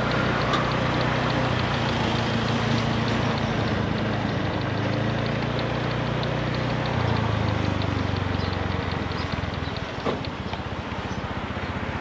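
Honda Scoopy i scooter's single-cylinder engine running on the move, with wind rushing over the microphone. The engine note steps down in pitch about seven seconds in and eases off near the end.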